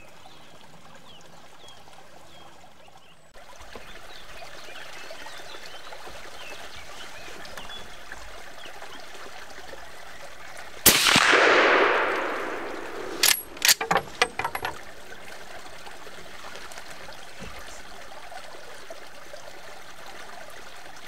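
A single rifle shot about eleven seconds in, its report rolling away for about a second and a half, then a short run of sharp clicks. The shot is taken at a yearling roe doe standing not quite broadside.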